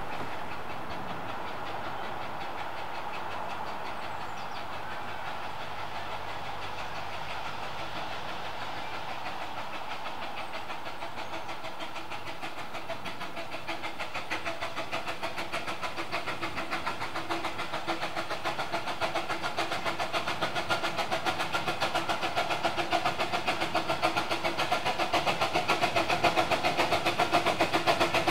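Miniature 12¼-inch gauge steam locomotive hauling a passenger train, its exhaust beating in a rapid, even rhythm that grows steadily louder from about halfway through as it approaches.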